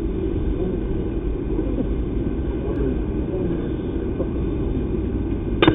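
Steady low outdoor rumble over the ballfield, then near the end a single sharp crack of a bat hitting a pitched baseball.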